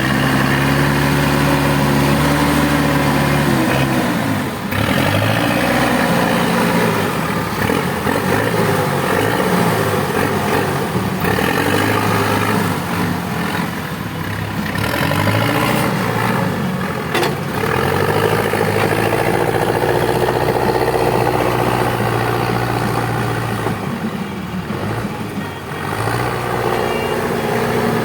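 Case 580 Super L backhoe loader's diesel engine running hard at high throttle. Its note rises and falls as the revs and load change, and sags briefly a few times before picking up again.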